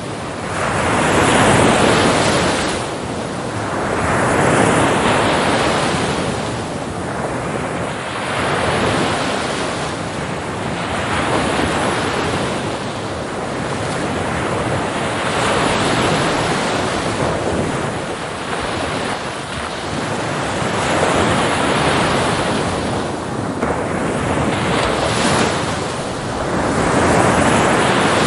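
Big ocean waves breaking against the shore, a continuous wash of surf that swells and fades again about every two to four seconds as each wave crashes.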